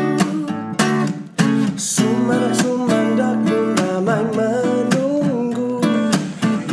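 Background music with a strummed acoustic guitar, the strums coming at an even beat under a steady melody.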